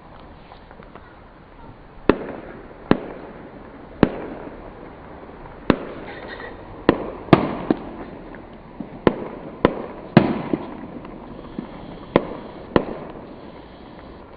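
Fireworks exploding: about a dozen sharp bangs at uneven intervals, starting about two seconds in, each trailing off briefly.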